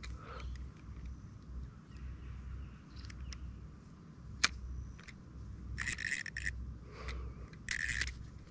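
Small spinning reel and fishing line being handled to sort out a line problem: scrapes and rubs, a sharp click about halfway, and two short hissing rustles near the end, over a low rumble.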